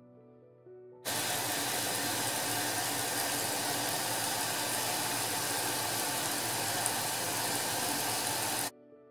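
Hot water rushing into a top-loading washing machine's tub as it fills: a steady, loud hiss that starts suddenly about a second in and cuts off abruptly near the end.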